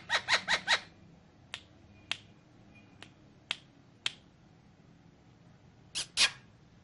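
Sharp dry clicks: a quick run of about five at the start, then single clicks roughly every half second, and a louder pair near the end.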